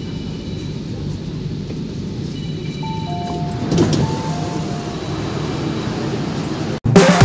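Steady low rumble inside a Korean-built MTR K-Train at the platform, with a two-pitch electronic chime about three seconds in and a louder clatter from the doors as they open just after. Loud music cuts in suddenly near the end.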